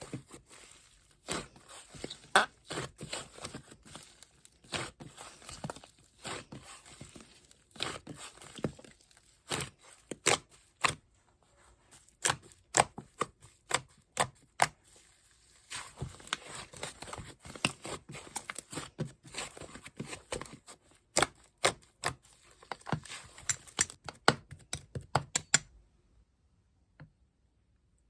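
Slime being squished and stretched by hand, a dense irregular run of sticky crackles and pops that stops near the end.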